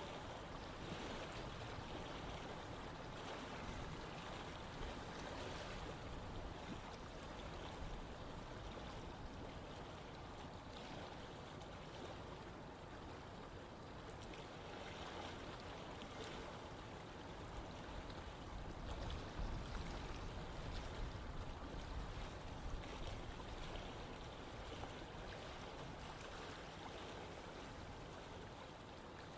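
Running water of a stream or river flowing steadily, a continuous rushing and trickling.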